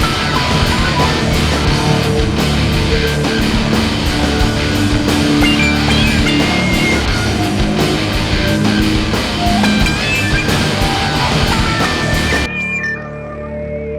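Background rock music with electric guitar and drums. About twelve and a half seconds in, the drums stop and a quieter guitar part rings on.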